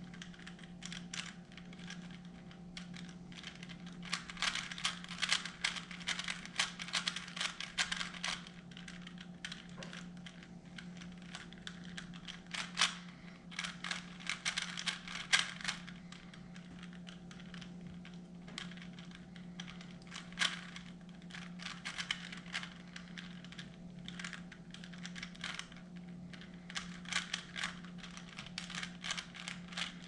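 A 3x3 Rubik's Cube turned rapidly by hand: its plastic layers click and clack in quick runs, with short pauses between.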